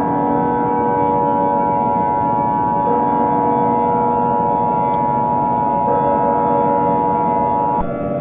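Emergency Alert System attention signal: the steady two-tone alert held for about eight seconds, cutting off sharply near the end. It sits over a droning ambient music bed whose notes shift every few seconds.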